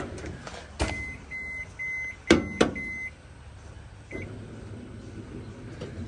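ZLINE microwave drawer beeping: a quick run of about five short high beeps, then one more a second later, with a few sharp knocks as a mug goes in and the motorized drawer shuts.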